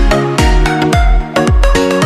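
Electronic background music with a steady beat of deep kick drums about twice a second under held chords.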